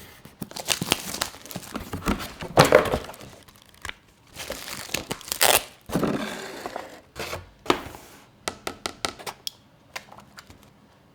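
Product packaging being torn open and crinkled by hand, in irregular rustling bursts with a few knocks, followed by a run of short sharp clicks near the end.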